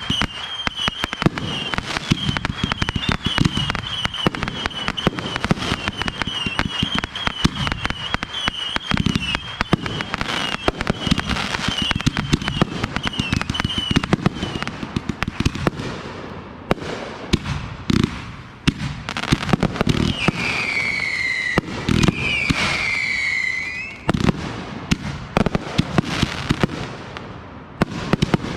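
Consumer fireworks going off in quick succession: dense crackling and popping with bangs. A warbling whistle runs through the first half, and two falling whistles sound about two-thirds of the way through.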